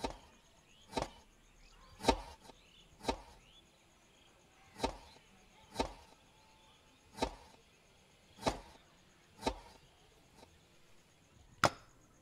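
Kitchen knife chopping tomatoes on a wooden board: about ten sharp single chops, roughly one a second, with a longer pause before the last one.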